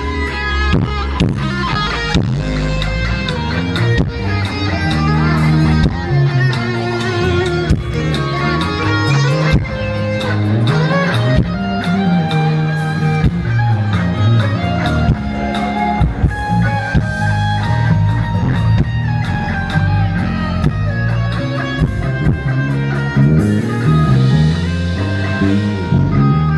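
Live band playing an instrumental break: guitar with bass and drum kit, without singing.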